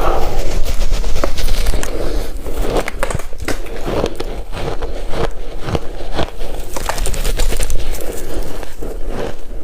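A person crunching and chewing ice, with a dense run of sharp cracks and crackles.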